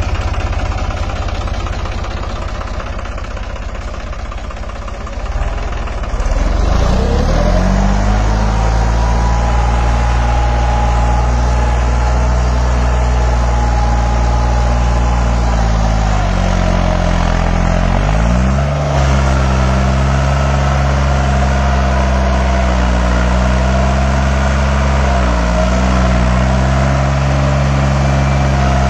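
New Holland tractor's diesel engine idling, then revving up about six seconds in and running steadily at high revs. It dips briefly and picks up again about two-thirds of the way through.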